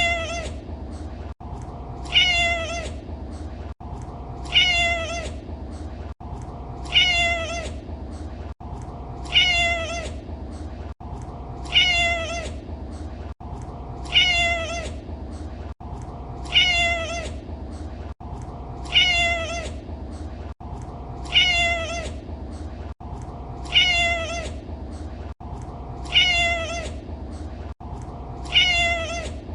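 Domestic cat meowing: the same short meow repeated as a loop, about once every two and a half seconds, over a steady low hum.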